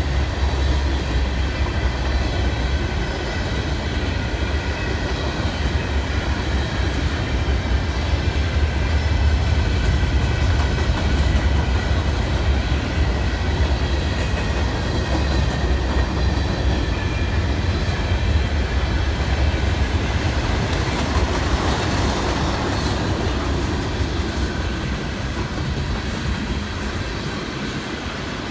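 CSX freight train rolling past, a steady rumble of wheels on rail that eases a little over the last several seconds.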